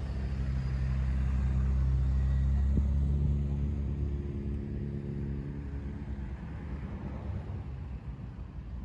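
A motor vehicle's engine hum: a steady low drone that swells over the first few seconds, then fades away over the next few, as a vehicle goes by close to the microphone.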